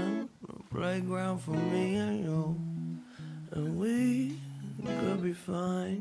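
Background music: a song with acoustic guitar and a singer.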